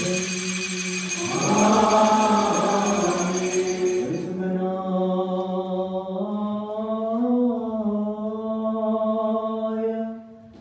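Malankara Orthodox liturgical chant: male voices sing a long, steady held note. Over it, small liturgical bells jingle for the first four seconds, then stop and leave the chant alone. The sound fades near the end.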